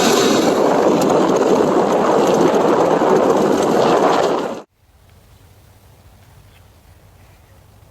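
A loud motor running steadily, which cuts off abruptly about four and a half seconds in, leaving quiet outdoor background.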